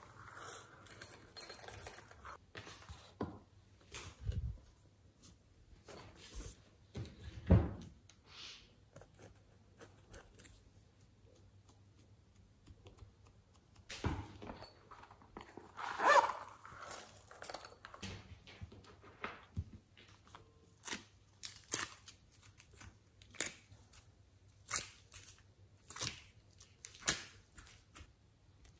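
Hands handling and setting down objects on a tabletop: a few thuds, the loudest about seven and a half seconds in, with scattered light clicks and rustles between quiet stretches.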